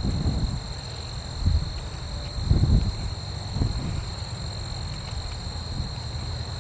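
Insects in the grass buzzing in a steady high trill over the low drone of a distant Boeing B-17 Flying Fortress, its four radial engines at takeoff power as it lifts off. Gusts of wind buffet the microphone, the strongest about two and a half seconds in.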